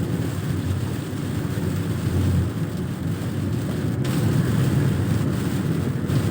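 Car driving on a rain-wet road: a steady low rumble of engine and tyres.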